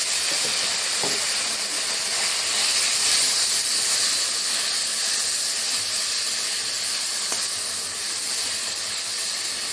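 Whole jujubes sizzling steadily in hot oil in a steel kadai as they are stirred with a spatula.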